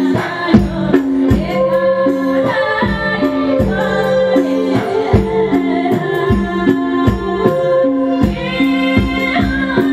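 A woman singing a Nepali folk song into a microphone over a live band, with held keyboard tones and a steady percussion beat, heard through a PA.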